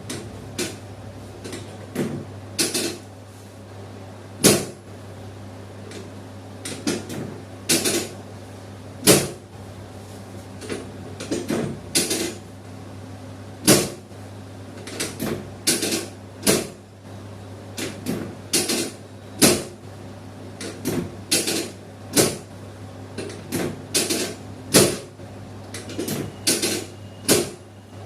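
A run of sharp knocks and clicks, irregular and roughly one a second, some much louder than others, over a steady low hum.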